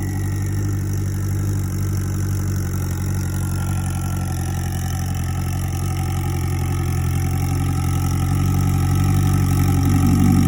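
Turbocharged Suzuki GSX1400 inline-four idling steadily, with a faint turbo whistle that slides slowly down in pitch over the first few seconds and then holds as a thin steady tone.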